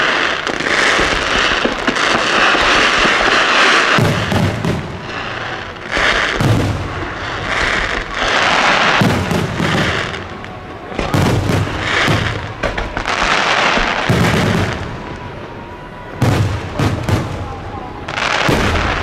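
Aerial fireworks show: a dense crackle of bursting effects for the first few seconds, then a run of deep booming shell bursts, about one every second or two, with crackling between them.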